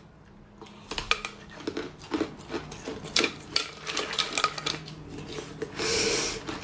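Ice being bitten and chewed: irregular sharp crunches and cracks, several a second at times, with a short noisy rush shortly before the end.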